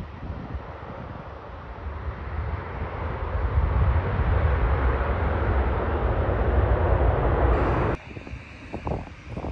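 Jet airliner's engines on the runway, a dense rushing noise with a deep low rumble that grows steadily louder. It cuts off abruptly about eight seconds in, leaving wind buffeting the microphone.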